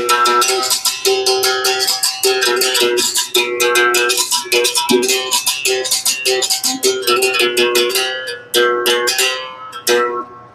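Berimbau being played: rapid strikes of the wooden baqueta on the taut steel wire, resonated by the gourd. The note switches back and forth between a lower and a higher pitch as the small metal plate, used in place of a dobrão, is pressed to the wire and released. The playing stops about ten seconds in.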